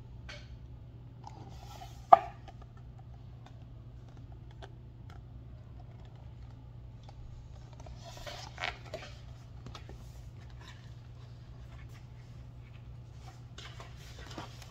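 Handling sounds of a hardcover picture book: one sharp knock about two seconds in, then a short rustle and scrape around eight seconds in and a few faint clicks, over a steady low hum.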